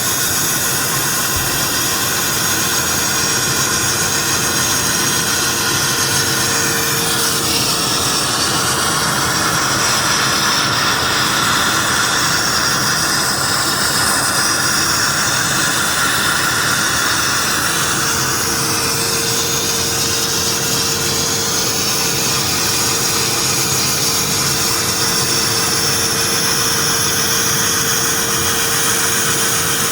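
Akwilon CNC automatic sandblasting machine running, with a loud, steady rushing hiss of compressed-air abrasive blasting whose tone shifts slowly as the nozzle works. A faint steady hum sits beneath the hiss and drops out for a stretch in the first half.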